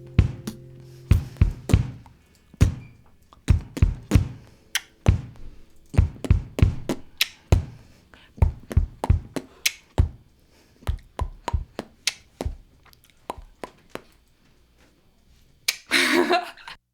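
A long series of sharp knocks and thuds at an uneven pace, thinning out toward the end, with a short noisy scrape-like burst near the end.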